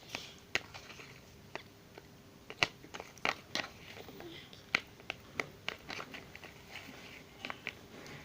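Freshly activated slime being stirred and squished as it clumps, giving irregular sticky clicks and pops.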